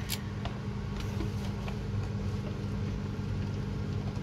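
A steady low electrical hum with an even hiss over it, and a single light click right at the start.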